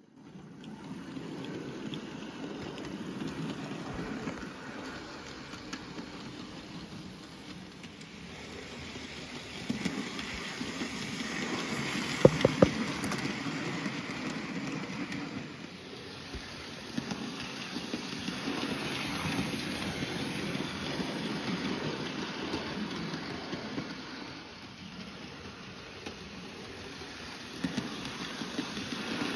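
Hornby model steam engine pulling a goods train of wagons round sectional track: a steady small-motor whir and the wheels rattling over the rails, rising and falling as it passes, with a few sharp clicks near the middle.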